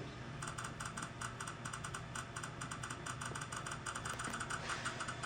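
Rapid run of light clicks, several a second and fairly even, over a steady low hum.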